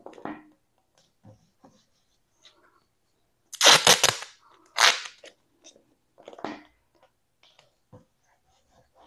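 Short bursts of crackling rustle with light taps and clicks between them, as a carburetor cover plate is handled and laid onto the intake manifold's carb pad. The two loudest bursts come about three and a half and five seconds in.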